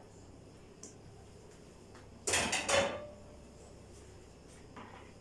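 An aluminium cooking pot set down on a kitchen counter about two seconds in: a short clatter of metal knocks with a brief ring.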